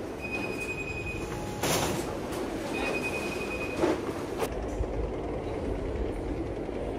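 Two long electronic beeps, each at one steady high pitch and lasting about a second, a second and a half apart, over a steady background din.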